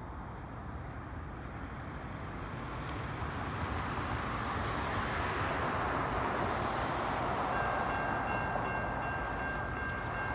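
Road traffic passing over a railroad crossing as a steady rushing that swells and eases, and from about seven and a half seconds in a distant train horn sounds a steady chord of several tones, a train approaching the crossing.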